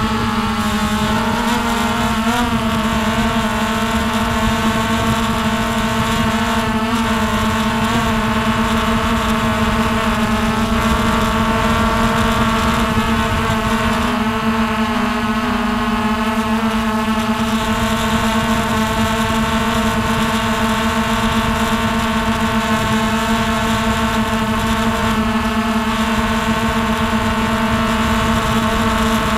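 Hubsan H109S X4 quadcopter's motors and propellers spinning at a steady speed, a loud constant-pitch hum heard through its onboard camera. The pitch wavers slightly a few times.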